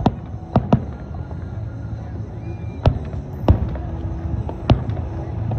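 Fireworks bursting overhead: about six sharp bangs at irregular intervals, three in the first second and the loudest near the middle, over a steady low background rumble.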